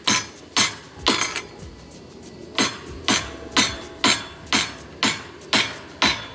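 Hammer driving nails into a wooden rafter board, steady blows about two a second, with a pause of over a second after the first three.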